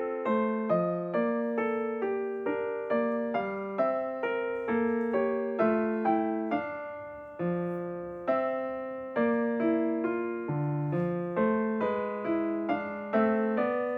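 Background piano music: a gentle melody of single struck notes with accompaniment at a steady, unhurried pace.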